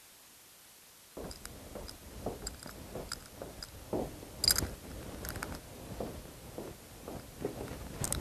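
Near silence for about a second, then irregular footsteps, cloth rustling and light knocks and clicks of furniture, with a sharp click near the middle and another near the end, as a person in a robe walks up and handles a high-backed chair.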